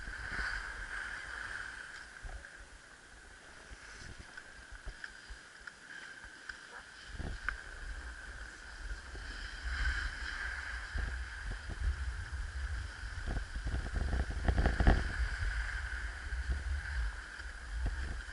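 Wind rumbling on the microphone, mixed with rough scraping and crunching of snow as the camera moves over the slope, loudest a little past halfway and again near the end.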